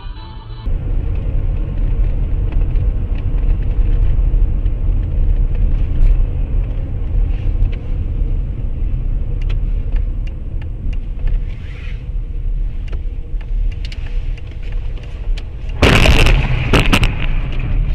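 A car on the road: a steady low rumble of engine and road noise, with a few faint clicks. About two seconds before the end comes a sudden loud noisy impact lasting over a second, the sound of a collision.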